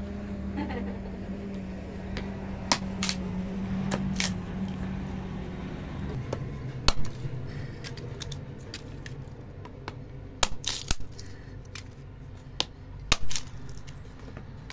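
Scattered sharp clinks and knocks of cookware and utensils being handled over a steady low hum.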